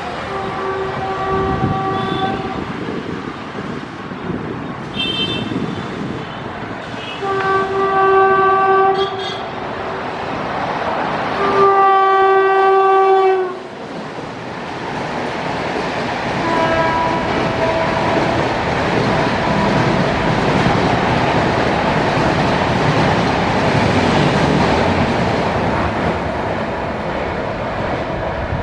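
UDAY Express locomotive horn giving three long blasts as the train approaches at speed, the third the loudest. A fainter, lower-pitched blast follows as it passes, and then the steady rush and rattle of the double-decker coaches going by.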